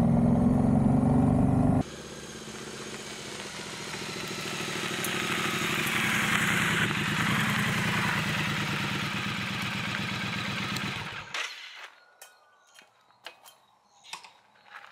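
Triumph Street Twin's parallel-twin engine rising in pitch as it accelerates, heard up close from the bike. Then the engine runs at low speed, getting louder as the motorcycle rolls up over gravel. About eleven seconds in it is switched off abruptly, leaving only a few faint clicks.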